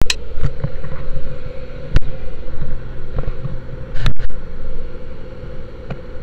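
Steady engine drone and hum inside a crowded vehicle, with handling noise as the camera rubs against clothing and is bumped three times, about two seconds apart.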